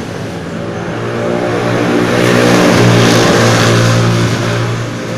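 A motor vehicle's engine passing close by. It grows louder to a peak about three seconds in, then fades.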